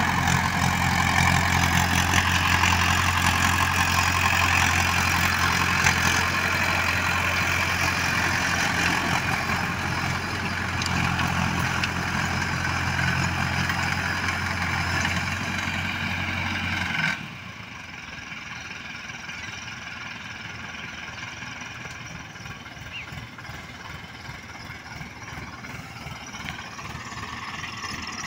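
Mahindra Arjun Ultra 555 DI tractor's diesel engine running steadily under load as it pulls a rotary tiller through dry soil. About seventeen seconds in the sound drops suddenly to a quieter engine hum.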